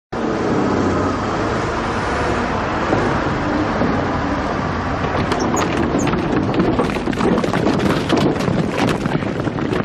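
A steady vehicle-like rumble with a wash of noise, joined from about halfway by a growing clatter of quick knocks.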